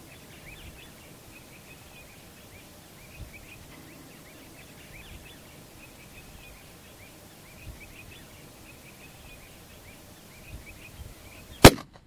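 Faint bird chirps over a steady outdoor background, then, near the end, a single loud shot from a Howa APC rifle in 6.5 Creedmoor fitted with a three-port muzzle brake.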